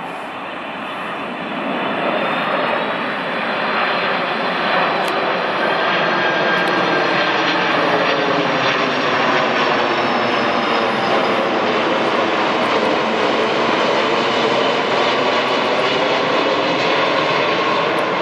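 Boeing 747's four jet engines passing low overhead on landing approach with the gear down. A loud, steady jet roar builds over the first two seconds, with a high whine that slowly falls in pitch as it goes by.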